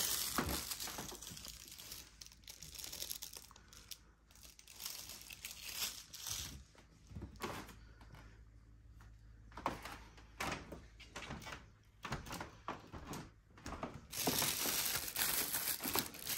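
Plastic protective bag of a television crinkling and rustling in irregular bursts as it is handled, with a few short knocks, loudest near the end.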